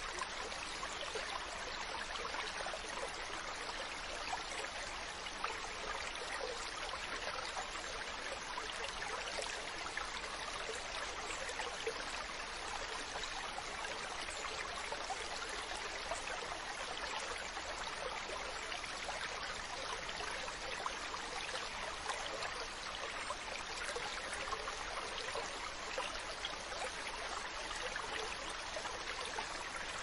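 Running water, a steady rushing and trickling noise that holds an even level without surges.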